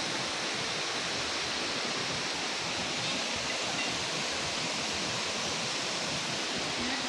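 Steady rush of a mid-sized hill river's water.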